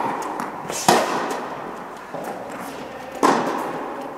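Tennis ball struck by rackets during a rally: two loud hits about two and a half seconds apart, each with a short echo, and softer knocks between them.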